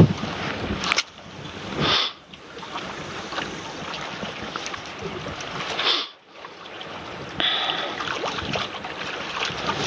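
Wind on the microphone and sea waves at a concrete tetrapod breakwater: a steady rushing noise that swells and drops away sharply a few times.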